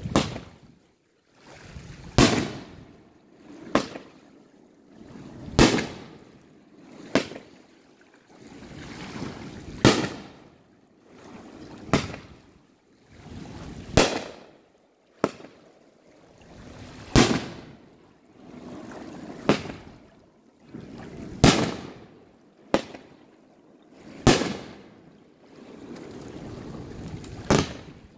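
Aerial fireworks bursting one after another: about fourteen sharp bangs, spaced a second or two apart, with a swelling rush of noise leading into each.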